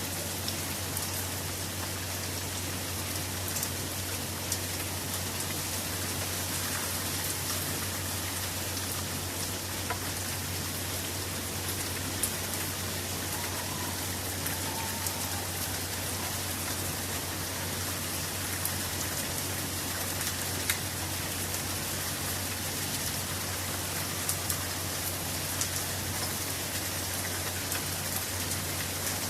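Steady rain falling, with scattered sharper clicks of single drops striking close by.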